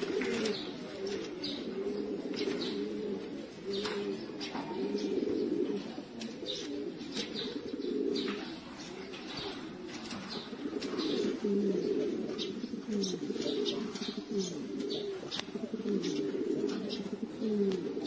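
Several domestic pigeons cooing together in a loft: overlapping low, throaty coos, some gliding downward, with frequent short sharp clicks mixed in.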